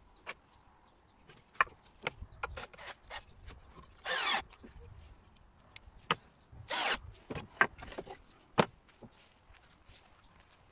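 Wooden fence boards being handled on a wooden tabletop: scattered knocks and clacks of wood on wood, with two short scrapes about four and seven seconds in.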